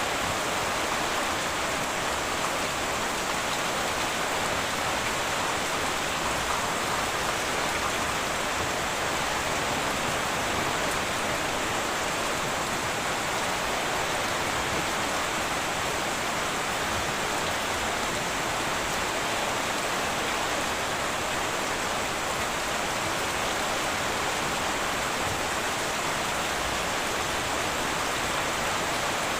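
Heavy rain falling steadily on a tin roof, an even, unbroken hiss.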